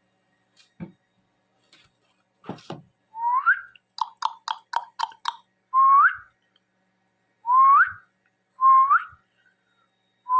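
Indian ringneck parrot whistling: short rising whistles repeated every second or two, with a quick run of about six clipped notes in the middle. A few soft knocks come in the first few seconds.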